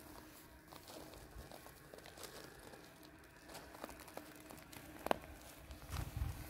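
Faint footsteps crunching on loose gravel: scattered small crunches and clicks, with one sharper click about five seconds in and a few dull thumps near the end.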